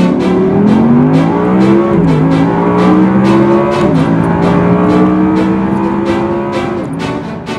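Audi R8's V10 engine accelerating through the gears, its pitch climbing and dropping sharply at two upshifts about two seconds apart. It then pulls steadily with a slowly rising pitch before easing off near the end.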